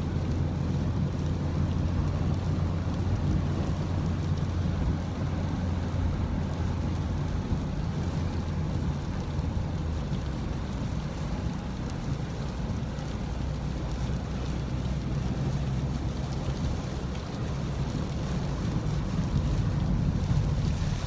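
Rainstorm wind buffeting the microphone in a steady low rumble, over a continuous rush of rain.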